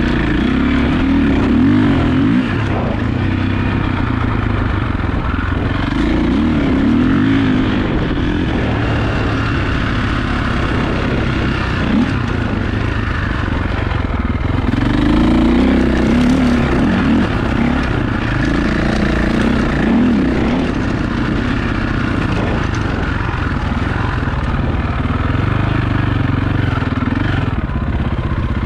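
KTM 525 EXC dirt bike's single-cylinder four-stroke engine under way in sand, its pitch rising and falling again and again as the rider opens and closes the throttle through the turns.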